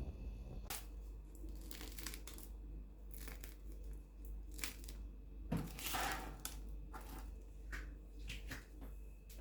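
Crisp crust of a freshly baked baguette crunching and crackling in a series of short, sharp bursts, the longest and loudest about six seconds in.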